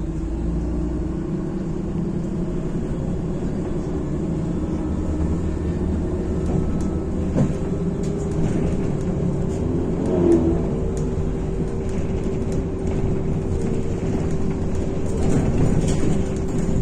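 Inside a MAZ-105 articulated city bus on the move: the engine and drivetrain run steadily with a low rumble and a whine that rises a little over the first few seconds as the bus picks up speed, with road noise and occasional small rattles.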